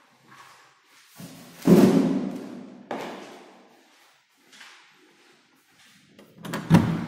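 A few heavy thuds, each ringing on for a second or so. The loudest comes about a second and a half in, a smaller one about three seconds in, and another loud one near the end.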